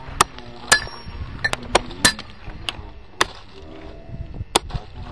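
Hand tools striking stone: sharp metallic clinks of hammer blows, about eight at an irregular pace, some with a brief ring.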